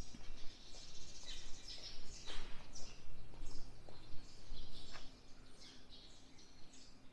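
Many small birds chirping and twittering, busy for about five seconds and then thinning out, over a low background rumble.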